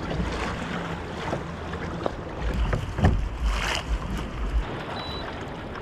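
Water lapping around a kayak with wind on the microphone and a low steady hum underneath, plus a short knock about three seconds in.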